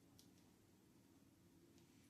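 Near silence: room tone, with two faint light clicks, one just after the start and one near the end.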